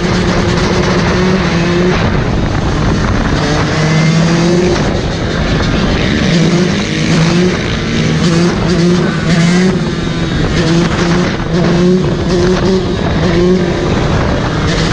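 Dirt bike engine revved again and again under the rider, with other motorbikes around and heavy wind noise on the camera microphone at riding speed.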